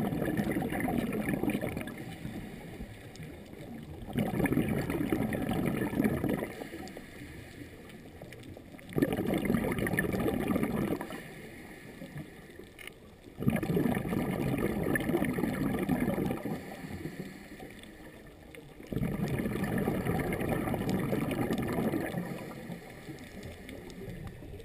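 Scuba diver's breathing heard underwater: each exhaled breath bubbles out of the regulator for two to three seconds, about every four to five seconds, with quieter gaps between breaths.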